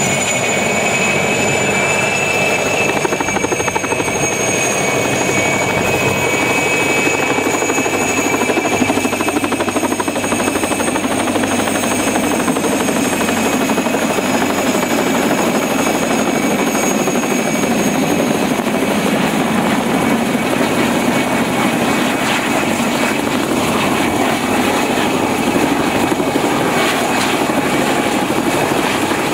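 Mil Mi-2 helicopter hovering low, its twin turboshaft engines and rotor running steadily: a loud rushing noise with a high, steady whine over it.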